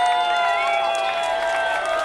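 A crowd cheering, with several voices holding long shouts and some scattered hand claps. One shout is held for nearly two seconds, sinking slightly in pitch.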